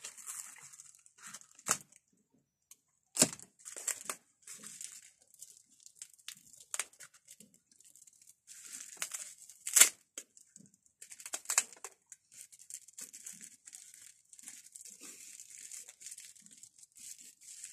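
Paper wrapping crinkling and tearing in the hands as a felting needle is unwrapped, with scattered sharp ticks, the loudest about ten seconds in.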